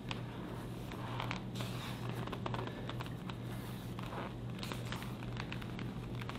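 Faint rustling and scratching of cord laces being pulled and crisscrossed around a samurai leg gaiter over cloth trousers, with small clicks scattered through it. A steady low hum runs underneath.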